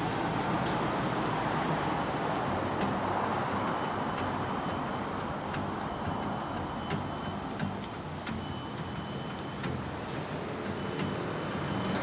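Steady hum of city road traffic, with a few faint light ticks from footsteps.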